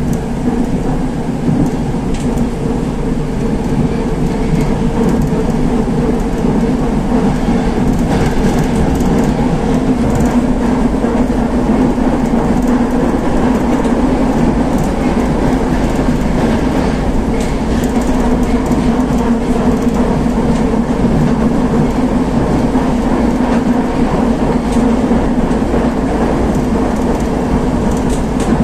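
Inside an 81-760A 'Oka' metro car running between stations: a loud, steady rumble of wheels and running gear with a steady low hum, and light clicks now and then.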